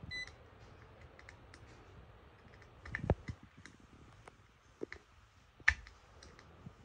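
Multimeter probe tips clicking and tapping irregularly against the legs of transistors on an e-rickshaw controller circuit board, with two louder knocks, one about 3 seconds in and one near 6 seconds. A short electronic beep sounds right at the start.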